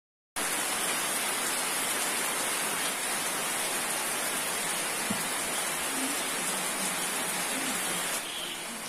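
Steady rain pouring, with water running off the edge of a roof. The sound starts abruptly just after the beginning and eases slightly in level near the end.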